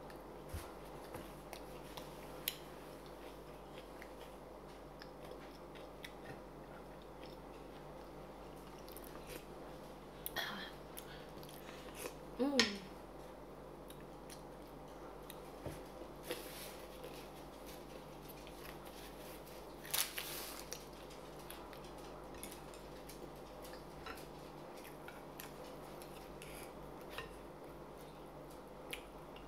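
Close-up mouth sounds of eating fried crab rangoon: crisp bites and chewing with scattered small clicks and crackles. A brief falling voice sound about twelve seconds in is the loudest moment.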